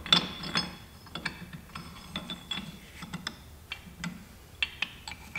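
Irregular light metal clicks and clinks as connecting rods and their rod bolts are fitted onto the crankshaft in the engine's crank carrier.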